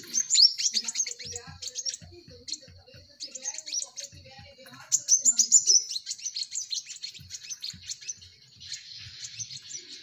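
Crimson sunbirds chirping: rapid, high, sharply falling twitters in several bursts, loudest in the first second and again about five seconds in.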